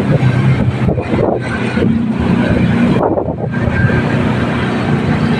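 Strong wind blowing hard against the microphone, a loud, continuous rush with a brief lull about three seconds in.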